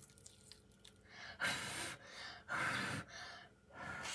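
A child blowing air into a stretched sheet of slime to puff up a bubble: three breathy puffs, each about half a second long.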